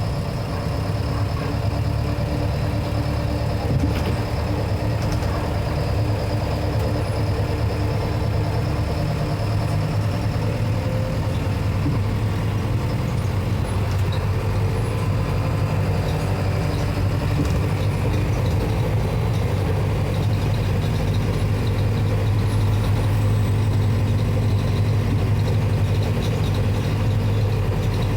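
Mercedes-Benz OF-1721 Bluetec 6 bus's four-cylinder diesel engine running steadily with a deep hum, getting a little louder in the last third.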